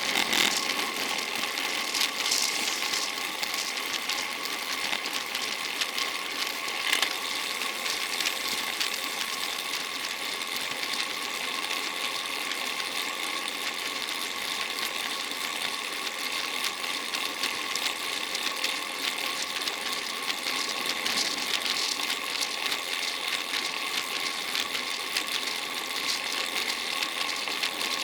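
Bicycle drivetrain running while riding: a steady mechanical whirr of the chain over the gears with fine ratchet-like clicking, over a constant hiss of tyre and wind noise.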